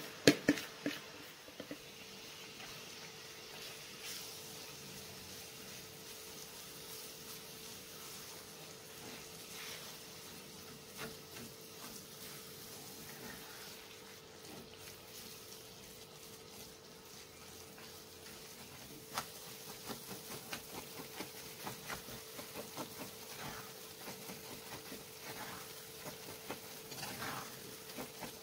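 Hot butter sizzling in a frying pan as dried flour crumbs are tipped in, with a few knocks of the bowl at the start. In the last third a wooden spatula stirs and scrapes the crumbs around the pan in quick, repeated strokes.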